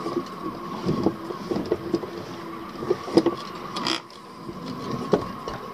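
Plastic remote throttle control of an electric outboard being handled and seated on its deck pedestal: scattered clicks and knocks, the sharpest a little past three seconds in, over a steady faint whine that drops away about four seconds in.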